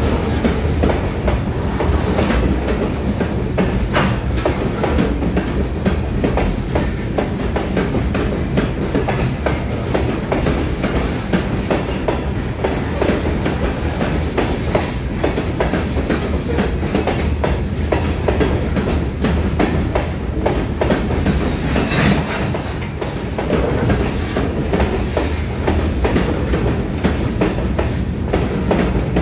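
Covered hopper cars of a freight train rolling past at close range: steel wheels clicking steadily over rail joints over a continuous rolling rumble.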